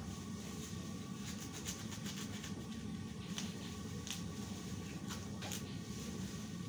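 Large aluminium cooking pot of lungs boiling on its burner: a steady low rumble from the heat and the boil, with faint scattered ticks as garlic cloves are dropped in.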